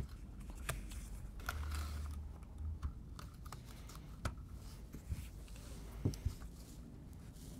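Plastic Hot Wheels track pieces being handled and unclipped while a piece is taken out of the layout: faint, scattered light clicks and knocks of plastic, with a low rustle about a second and a half in.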